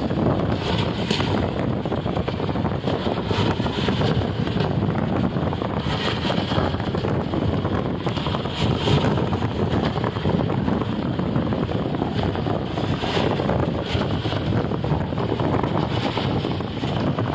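Steady road and wind noise from a moving vehicle, with wind buffeting the microphone.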